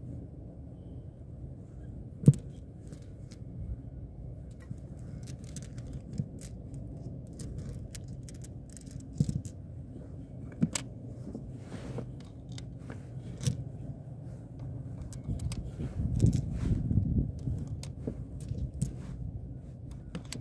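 Small metallic clicks and clinks from a CO2 air revolver being handled with its cylinder swung open. A sharp click about two seconds in is the loudest. A steady low rumble runs underneath.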